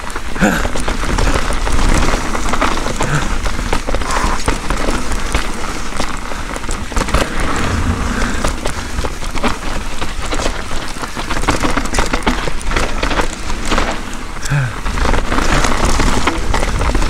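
Mountain bike riding down a wet dirt trail, heard from a chin-mounted action camera: a steady rushing noise with a heavy low rumble, and many small clicks and knocks from the bike rattling over rough ground.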